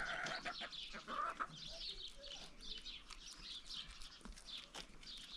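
Chickens clucking, with many short high bird chirps scattered throughout and a few light clicks.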